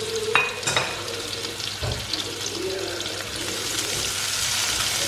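Sliced onion and capsicum frying in hot oil in a pan and being stirred, with a few utensil clicks and a knock in the first two seconds. The sizzle grows louder through the second half.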